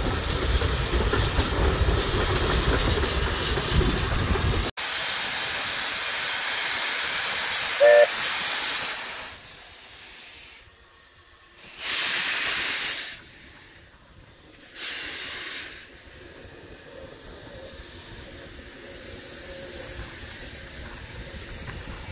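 Welsh Highland Railway Beyer-Garratt steam locomotive standing in the station, hissing steam. A short whistle toot comes about eight seconds in, then two brief bursts of steam, and the hiss settles to a quieter simmer. The first few seconds hold a low rumbling noise before a sudden cut.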